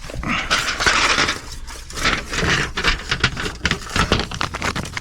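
Sheet-metal ductwork being handled: scraping and clattering with many small clicks and knocks, in two spells with a brief lull about halfway through.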